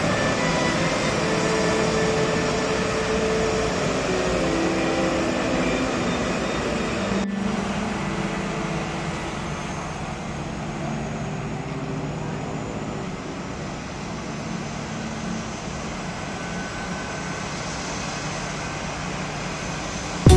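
Jet airliner engines running, a steady rushing noise with faint whining tones that slowly fades, with a brief break about seven seconds in.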